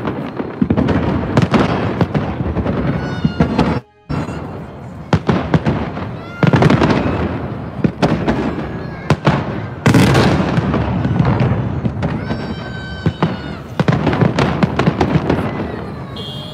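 Fireworks salute: a dense run of firework shell bursts, bangs and crackling, with heavy bursts about six and ten seconds in and a sudden brief drop-out about four seconds in.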